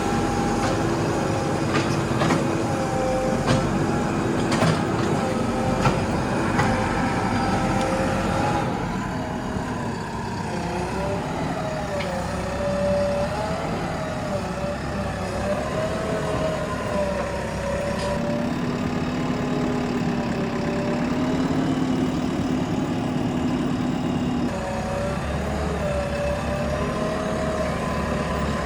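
Backhoe loader's diesel engine running under load, its pitch rising and falling as the hydraulics work, with scattered knocks and clunks in the first several seconds.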